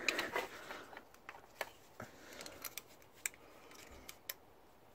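Hand tools on the rocker arms of a Ford 1.3 Endura OHV engine while the valve clearances are checked: a feeler gauge scraping between rocker and valve stem, and a ratchet and socket clinking, giving irregular light metallic clicks and scrapes.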